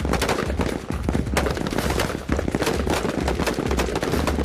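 Rifle fire from several shooters on a firing line with AR-pattern service rifles: sharp shots overlapping at irregular intervals, several a second.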